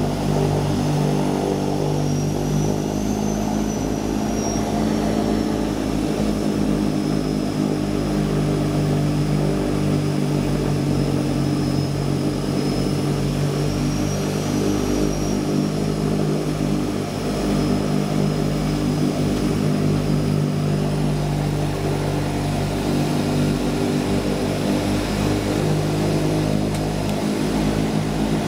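Floatplane's turboprop engine and propeller running steadily as it taxis on the water, heard from inside the cabin, with a high turbine whine that slowly rises and falls twice.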